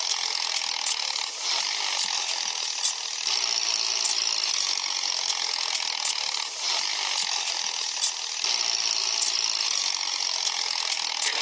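Small electric motor and gearbox of a DIY toy tractor whirring steadily as it drives, with a few brief dips along the way.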